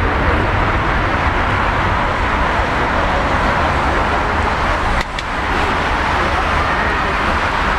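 Boeing 737-800's CFM56-7B turbofan engines at takeoff power during the takeoff roll: a steady, loud rushing noise with deep rumble, broken by a brief click and dip in level about five seconds in.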